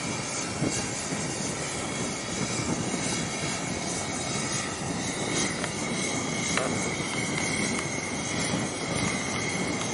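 A steady engine drone with a thin, steady high-pitched whine running through it. The whine grows stronger a little past halfway.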